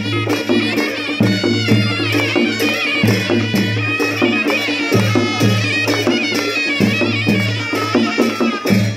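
Traditional folk music: a reedy wind-instrument melody over a low drone, with a steady drum and cymbal beat.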